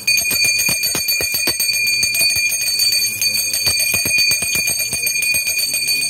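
Puja hand bell (ghanta) rung continuously during aarti: rapid, even clapper strikes over a steady high ringing tone.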